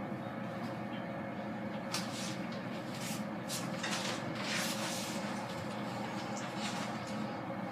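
Otis high-speed traction elevator car running, a steady low hum with brief surges of hiss about two to five seconds in.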